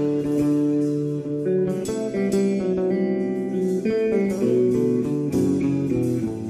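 A small band playing an instrumental passage, guitar to the fore over keyboard, electric bass and drums, with chords changing every second or so.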